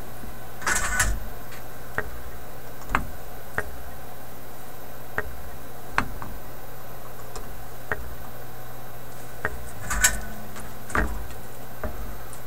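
Small clicks and handling noises of hands working capacitor wire leads and a solder spool at a workbench: scattered sharp ticks every second or so, with two brief rustling scuffs about a second in and near ten seconds, over a steady low hum.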